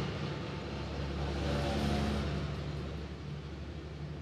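Steady low background hum, swelling slightly about a second and a half in and easing off again.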